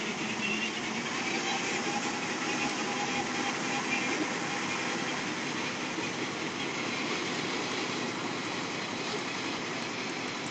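Two-row corn harvester running steadily, its engine and working machinery giving a continuous, even mechanical noise.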